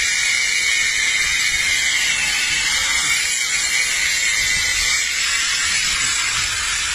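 Angle grinder's cutting disc grinding through thin sheet metal stuck around a dog's muzzle: a steady, loud hiss with a thin high whine that fades about five seconds in.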